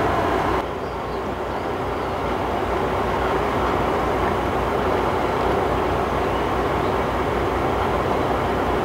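Small fishing boat's engine running steadily, a continuous rumbling drone. It dips slightly in level and loses some of its hiss just under a second in.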